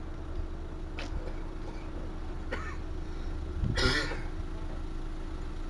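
A person clears their throat once, briefly, about four seconds in, over a steady low outdoor rumble and hum.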